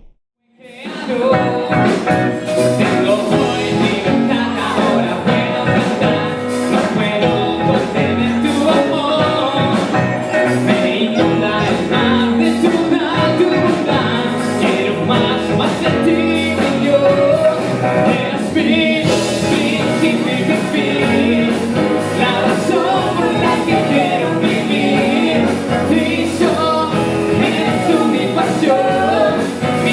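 A song with singing over a full band accompaniment, starting about half a second in after a moment of silence and playing on steadily.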